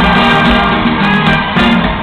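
Loud live salsa band music playing in an arena, heard from the audience.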